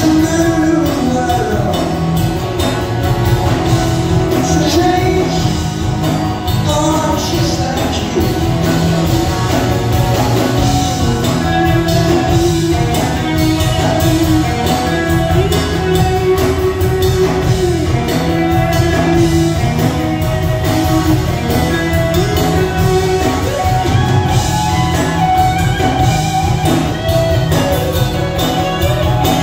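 Rock band playing live in a large hall: strummed acoustic guitars and drums with a male lead vocal.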